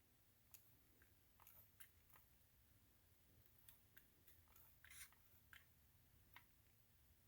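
Faint, scattered small metal clicks and scrapes as a compensator is tried onto the 1/2x28 threaded barrel of a Glock 19, the loudest about five seconds in. The comp is not catching the thread.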